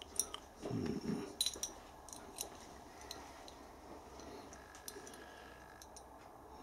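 Faint, scattered small metallic clicks and ticks as the brass movement plates and pivots of a dial test indicator are handled and fitted back into its aluminium casing, with a brief low sound about a second in.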